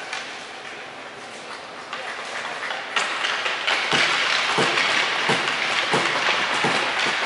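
Spectators clapping in an ice rink, the applause swelling about three seconds in, with scattered knocks mixed through it.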